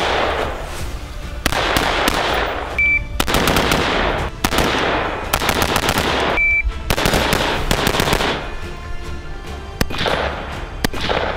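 Rapid strings of rifle shots from a Geissele URGI 5.56 mm carbine, fired in several quick bursts with short pauses between, over background music.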